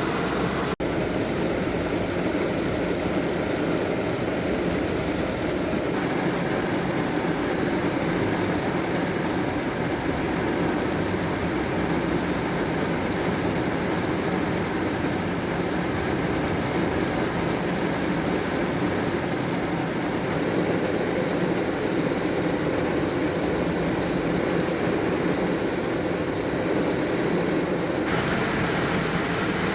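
Heavy rain falling steadily as a dense, even hiss. Its character shifts a few times, with a brief dropout about a second in.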